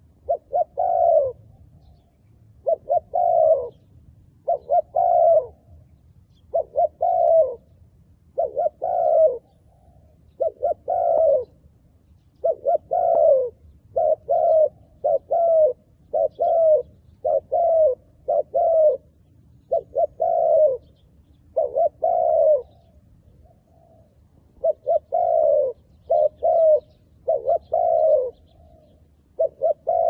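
Spotted dove cooing: short phrases of two or three coos, repeated every one to two seconds.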